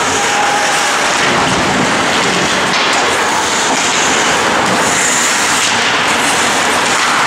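Steady, loud rink noise of an ice hockey game in play: skates and sticks on the ice, with the arena's hum.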